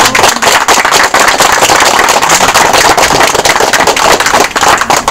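A small group applauding: many hands clapping at once, dying away at the end.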